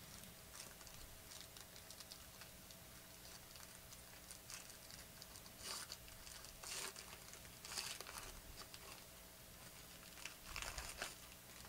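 Faint crinkling and crackling of a foil trading-card pack being torn open and handled, in a few soft scattered bursts.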